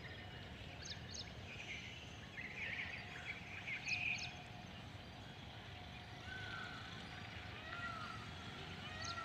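Birds chirping and chattering over a faint, steady low background rumble; from about six seconds in, one bird repeats a short arched call roughly every second and a half.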